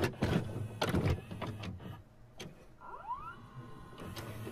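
Video-cassette recorder mechanism sound effect: a series of clicks and clunks, with a short whine rising in pitch about three seconds in.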